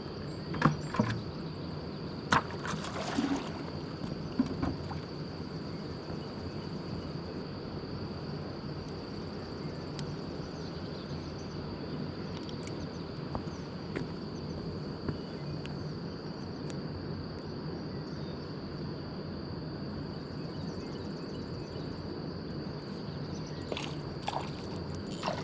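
Steady rushing of spillway water with a constant high-pitched insect drone over it. A few sharp clicks come in the first few seconds and again near the end.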